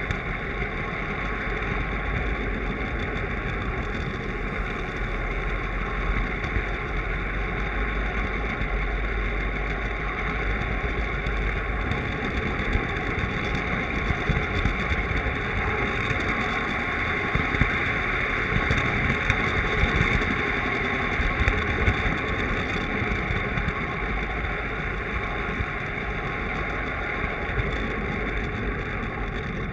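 Lionel model train rolling along three-rail track, heard from a camera riding on it: a steady rumble of wheels and motor, with sharper clicks scattered through the middle stretch.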